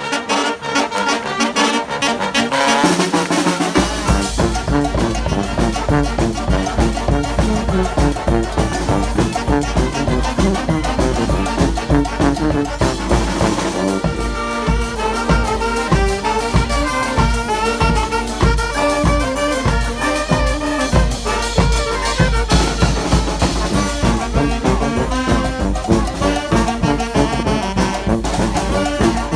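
Street brass band playing a lively tune, trumpets and trombones over a steady beat. The low bass end comes in about four seconds in.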